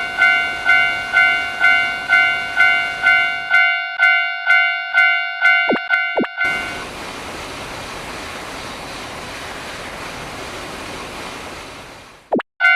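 Japanese level-crossing warning bell ringing "kan-kan" about twice a second, with two short falling tones around six seconds in. The bell then stops and a train passes with a steady rushing noise for about five seconds, fading out near the end, followed by a brief falling tone.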